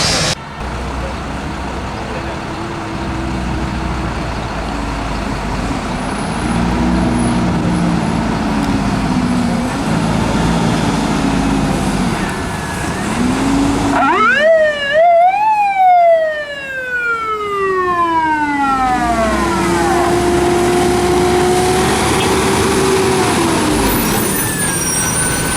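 Fire truck engine running, its pitch rising and falling as it revs. About halfway through, a fire engine siren winds up twice to a high wail and then slowly falls away over a few seconds.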